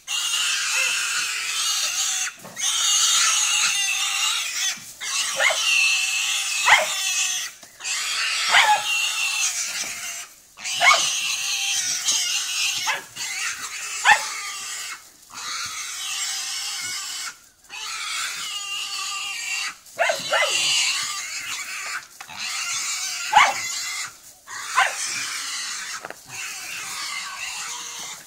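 Wild boar squealing in distress while dogs attack it: loud, high-pitched screams broken by short pauses every couple of seconds.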